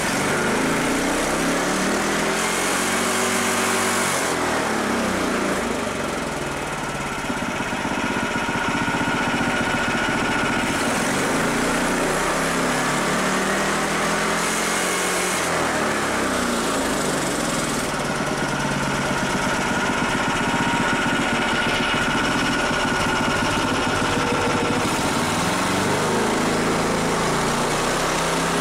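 Lifan KP460 single-cylinder four-stroke engine being revved up from idle and dropped back three times. On the PZ30 carburettor it does not gain full revs, in the owner's judgement.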